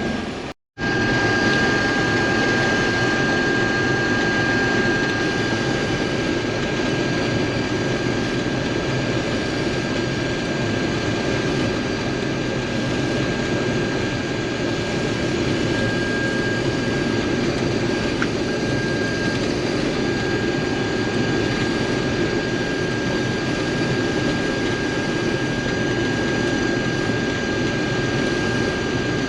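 Case IH combine running steadily while harvesting wheat, a constant machine drone with a thin steady high whine over it.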